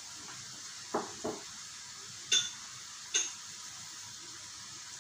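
Kitchen dishes and utensils handled off the stove: two soft knocks about a second in, then two sharp ringing clinks about a second apart. Underneath, a faint steady sizzle of onion and grated carrot frying in oil in the pan.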